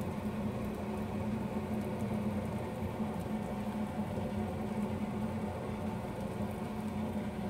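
Eggplant omelettes frying in oil in a pan, a faint sizzle and crackle, under a steady low mechanical hum.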